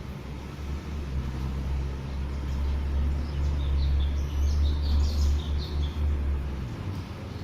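A steady low rumble, swelling in the middle, with a brief flurry of high bird chirps about halfway through.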